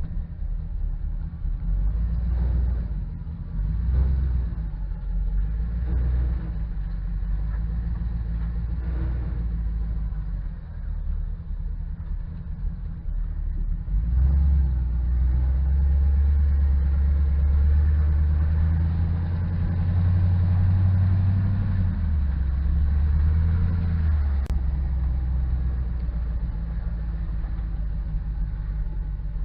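A 5.3-litre V8 truck engine running as the truck drives, a steady low rumble. About halfway through it gets louder for roughly ten seconds as it pulls harder, then eases back, with a brief click near the end.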